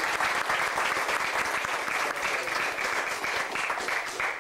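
Audience applauding, many hands clapping at once in a dense, steady patter that cuts off suddenly near the end.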